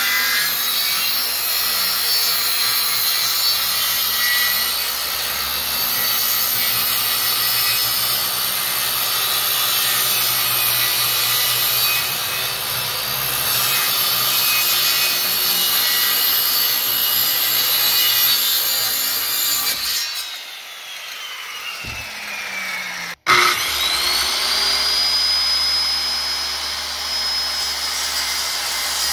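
Skilsaw circular saw cutting through plywood, its motor running steadily under load. About twenty seconds in, the blade winds down with a falling whine. After a brief break the saw spins up again with a rising whine and goes on cutting.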